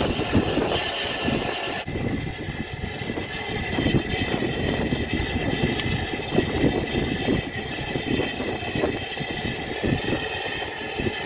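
Narrow-gauge steam locomotive No. 190 Lyd, a 2-6-2 tank engine, standing at the platform with steam up, heard under an uneven wind rumble on the microphone. The sound changes abruptly about two seconds in.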